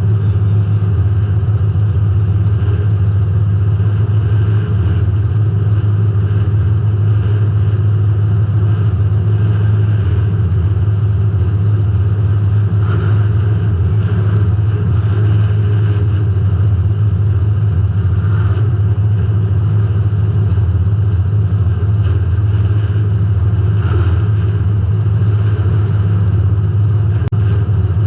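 Demolition derby car's engine running hard and steady, heard from inside the car, with a few faint knocks in the middle stretch.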